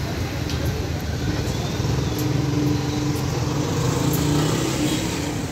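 Road traffic, with a motor vehicle engine running steadily as a low hum.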